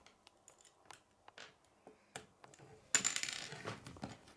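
Small plastic K'nex pieces clicking against each other and the wooden tabletop as they are handled, with a louder clattering rattle about three seconds in.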